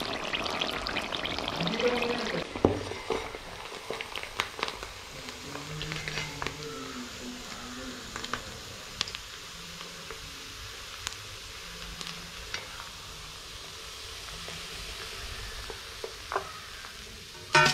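Small fish deep-frying in oil in a wok, a steady sizzle that is louder for the first couple of seconds. A steel ladle stirs the fish, clicking against the iron pan, with one louder clank near the end.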